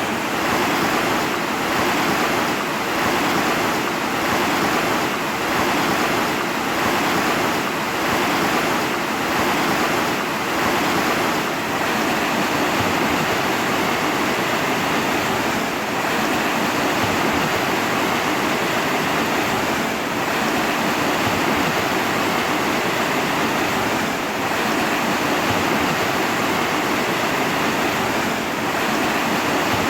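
Steady rushing water: an even, continuous hiss of flowing water with only slight rises and falls in level.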